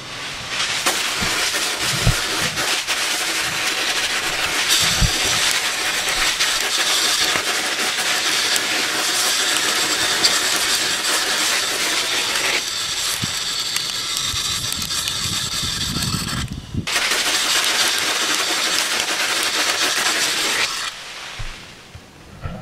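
Sandblasting gun blasting abrasive grit with compressed air onto a moped frame: a loud, steady hiss that starts about a second in, cuts out briefly a few seconds before the end, resumes, and stops near the end.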